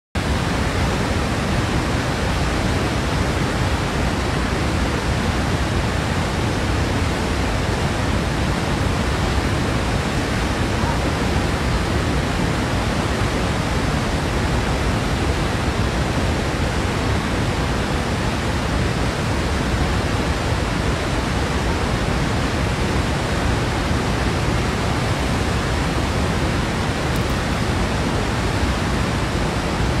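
Niagara Falls' Horseshoe Falls plunging into its gorge, a loud, steady, unbroken rush of falling water, heaviest in the deep low end.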